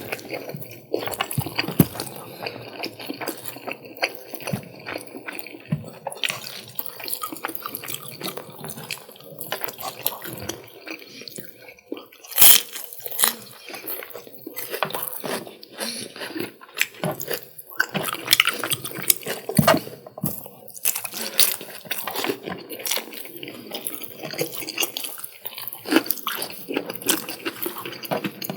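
Close-miked eating sounds of chicken curry and rice: wet chewing and smacking, with many small sharp clicks and a few louder smacks.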